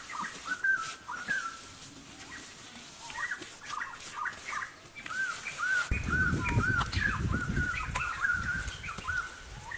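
High, squeaky animal calls, each short and arching up and down in pitch, sparse at first and then coming quickly, two or three a second, from about three seconds in. A low rumble runs under them from about six seconds in until just before the end.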